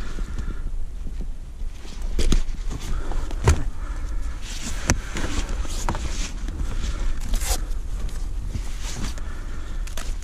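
Rustling of a landing net and a padded unhooking cradle as a pike is handled in them, with several sharp knocks, over a steady low rumble.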